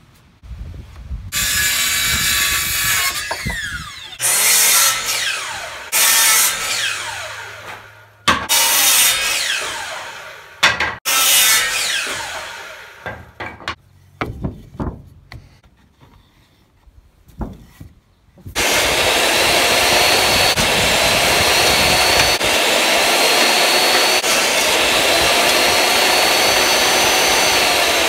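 A power saw cutting wood in a series of loud bursts, each with a falling whine. After a short quieter stretch with a few scattered knocks, a table saw runs steadily and loudly, its pitch rising and falling slowly with the load.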